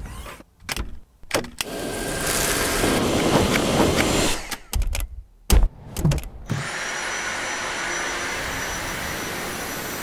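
Dyson V7 Motorhead cordless stick vacuum: clicks and knocks as the machine is handled, the motor running for a couple of seconds, more knocks, then from about six and a half seconds in the motor running steadily with a high whine.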